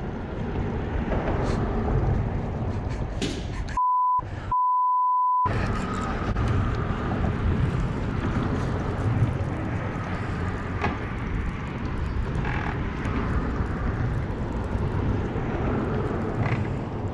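Two censor bleeps about four seconds in, a short one and then a longer one: a steady pure beep tone that replaces all other sound, over steady rumbling background noise.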